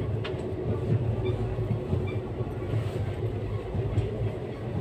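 Steady low rumble of a passenger train running, heard from inside the coach, with a faint steady hum over it.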